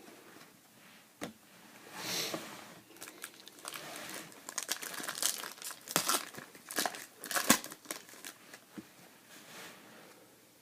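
Foil wrapper of a Topps Chrome trading-card pack being torn open and crinkled in the hands. A run of sharp crackles comes over several seconds, loudest a little past the middle, then dies down.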